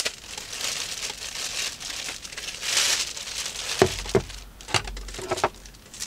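Clear plastic packaging bag crinkling and rustling as a remote control is unwrapped from it by hand, with a few short sharp clicks in the second half.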